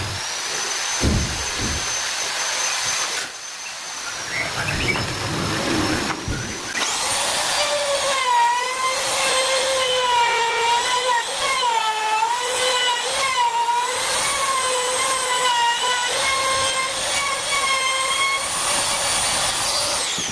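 Electric wood trimmer (compact router) running at high speed and cutting wood, its motor pitch dipping and recovering repeatedly as the bit bites into the wood. A high steady whine comes first, and the trimmer comes in about seven seconds in.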